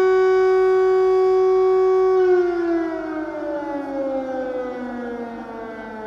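Air raid siren holding one steady, loud tone, then about two seconds in winding down, its pitch falling slowly as it fades.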